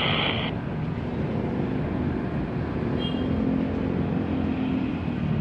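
Steady low rumble with a faint droning hum. A radio transmission's hiss cuts off abruptly about half a second in.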